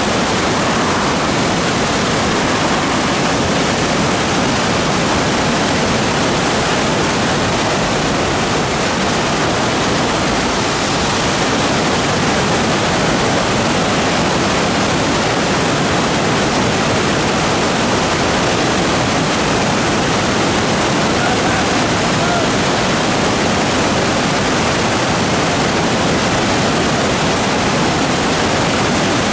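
Loud, steady rush of whitewater from a river in spate running over rapids and falls.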